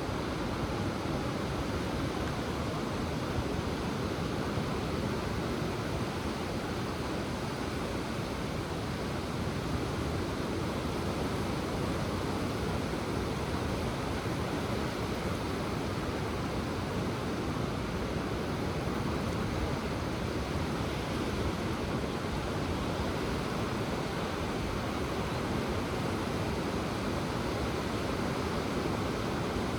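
Ocean surf: a steady, even wash of waves, low and constant, with no single breaking wave standing out.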